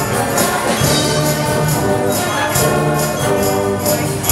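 School concert band playing live: brass and woodwinds holding sustained chords over low notes, with a high percussion stroke marking a steady beat about twice a second.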